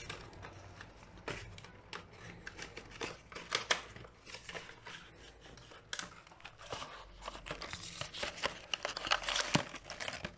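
A small cardboard box and its plastic packaging being opened and handled by hand: irregular rustling, scraping and small clicks, busiest in the last few seconds as the inner tray comes out.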